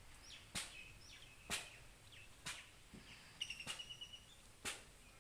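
Faint outdoor birdsong: scattered high chirps and a short trill about three and a half seconds in, with a sharp click about once a second.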